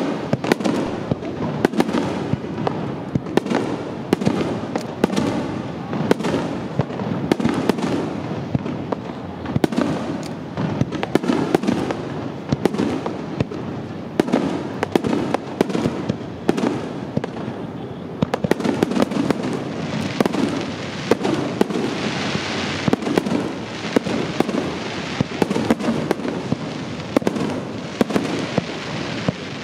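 Aerial fireworks bursting in a rapid, unbroken barrage of bangs and booms. About two-thirds of the way through, a stretch of crackling joins in.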